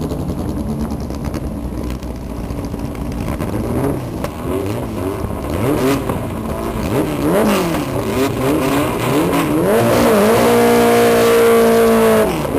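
Air-cooled VW Beetle drag-car engines idling at the start line, then revved up and down again and again. Near the end one engine is held at high revs for about two seconds in a burnout, spinning the rear tyres.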